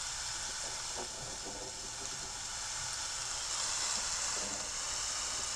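Rain sound effect from a smart-lighting app's lightning scene: a steady hiss of falling rain, swelling a little about four seconds in.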